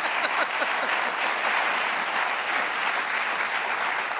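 Studio audience applauding, a steady even clapping that keeps up at one level.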